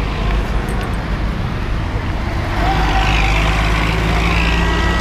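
Road traffic: cars passing close by on a busy city street, a steady rumble of engines and tyres that grows louder about halfway through.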